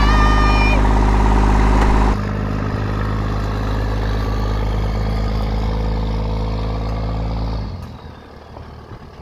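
Pickup truck's engine running steadily at low speed while towing a trailered trimaran. About two seconds in the sound changes abruptly, and near the end it falls quieter as the truck moves off.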